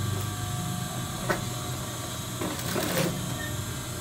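Industrial sewing machine running with a steady motor hum while a seam is sewn. There is one sharp click about a second in and a short rustle of fabric being moved near the end.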